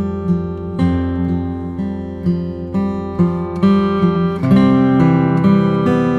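Background music: acoustic guitar picking and strumming with sustained chords.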